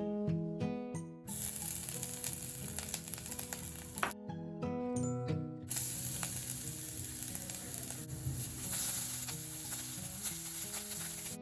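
Food frying in hot oil in a pan, a steady sizzle that starts about a second in, breaks off for a second and a half a little after four seconds, then resumes. Plucked acoustic guitar music plays underneath.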